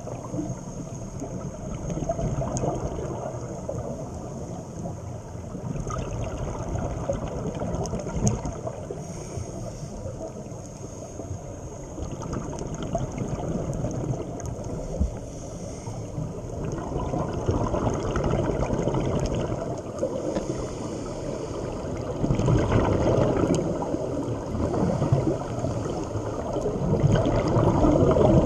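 Muffled underwater noise from a scuba diver's regulator, with gurgling bursts of exhaled bubbles that swell louder every few seconds in the second half.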